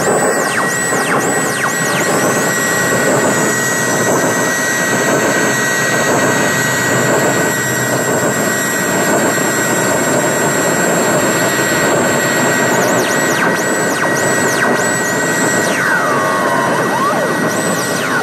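Harsh noise music from a hand-wired electronic circuit played through a small guitar amplifier: a loud, dense hiss-like wall of noise with a steady high whine. A still higher tone stutters on and off at the start, holds for several seconds, stutters again about two-thirds in, and falling glides come in near the end.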